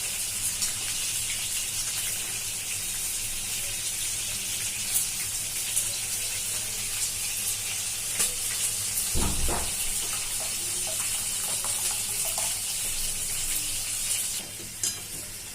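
Food frying in hot oil in a pan: a steady sizzle with fine crackles, easing off shortly before the end. A dull knock about nine seconds in.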